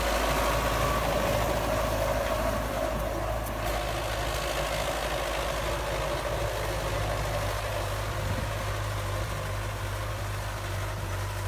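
Belarus 820 tractor's four-cylinder diesel engine running steadily under load as it pulls a disc harrow through the soil. It grows slightly fainter as the tractor moves away.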